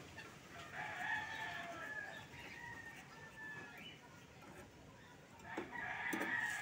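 Rooster crowing twice, two long drawn-out crows a few seconds apart; the second begins near the end.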